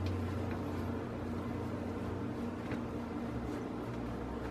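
Wooden spoon stirring chopped roasted vegetables on a metal sheet pan, soft and faint, with a few light ticks over a steady low hum.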